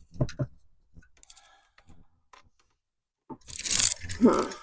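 Handling noise while working at a wall outlet: a few light clicks, then faint ticks, then a short scraping crunch about three and a half seconds in.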